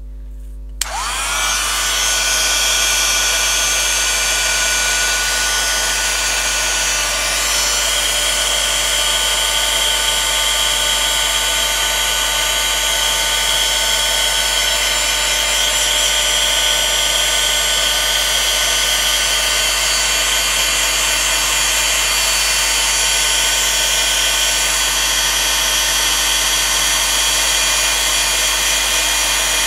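Embossing heat gun switched on about a second in, its fan motor whining up to speed and then running steadily with a blowing hiss as it heats embossing powder to melt it.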